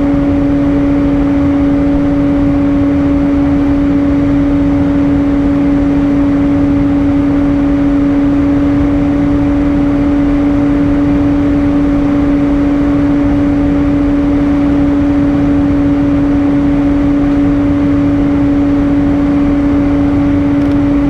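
Cabin noise of an Airbus A320 in flight: a steady rush of engine and airflow noise with a constant low hum and a fainter higher hum above it.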